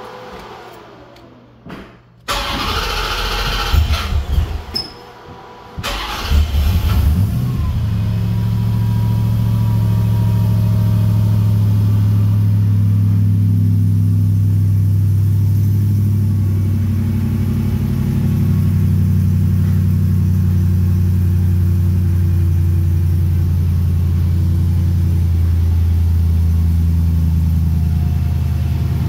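Hellcat supercharged 6.2-litre Hemi V8 swapped into a 1991 Jeep Grand Wagoneer, breathing through a stainless exhaust. It starts up about two seconds in, catches with a brief flare near six seconds, then settles into a steady idle.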